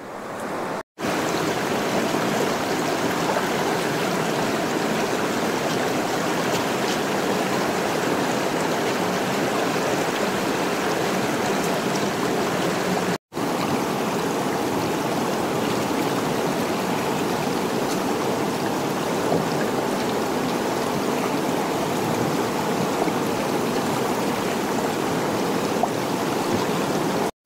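Fast mountain stream rushing down rocky, step-like falls into the Umngot River: a steady, unbroken rush of water. It drops out for an instant twice, about a second in and about halfway.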